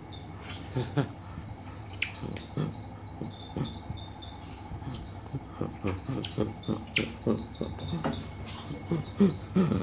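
Pet otter playing: several short, sharp squeaks that drop in pitch, over quick scuffling and tapping as it tussles with bare feet on a tile floor.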